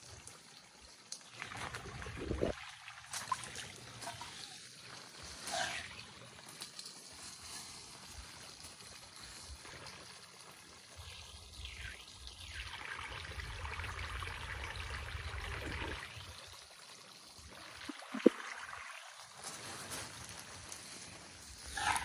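Shallow rocky creek trickling over stones, with uneven low rumbling noise on the phone's microphone. A single sharp click comes about three-quarters of the way through.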